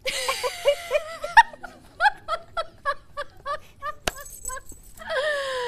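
A woman laughing in a run of short rhythmic "ha" pulses, about four a second, mixed with a little speech at the start and end. There is one sharp click about four seconds in.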